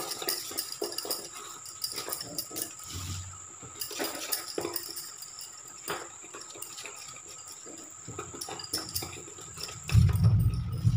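Instant besan (gram flour) dhokla batter being stirred in a steel bowl, with scraping and small clinks against the metal, while water is poured in from a steel tumbler. A loud low rumble comes near the end.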